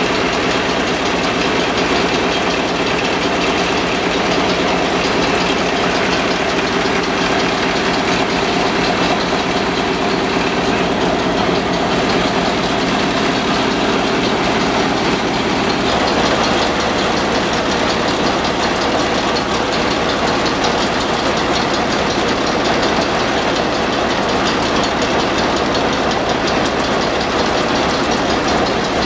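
Old stationary oil engines running together with a steady, dense clatter of firing strokes. The balance of the sound shifts about halfway through.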